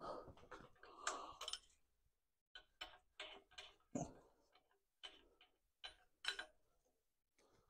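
A short clatter, then scattered light metallic clicks and ticks of a spanner and small steel bolts and fittings being worked and handled as the oil feed and rear timing cover come off a bare engine block.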